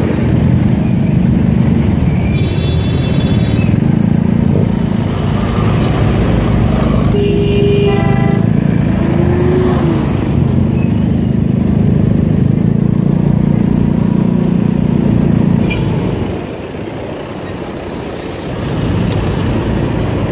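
Motorcycle engine running under way with road and wind noise. A vehicle horn beeps a few seconds in, and a louder horn honks about seven seconds in. About three quarters of the way through, the engine sound drops away sharply, then picks up again near the end.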